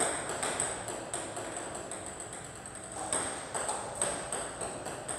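Table tennis (ping-pong) balls clicking during serve practice: paddle strikes and balls bouncing on the table, a steady run of sharp, irregular clicks, two or three a second.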